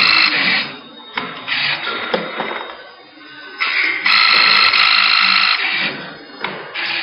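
CNC thread insert machine running through its cycle: a loud high whine of several steady tones for about a second and a half at the start and again about four seconds in, with sharp clicks and quieter mechanical clatter between.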